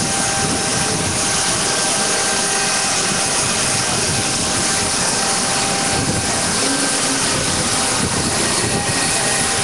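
Aircraft turbine noise running steadily, a constant loud rush with a steady high whine over it.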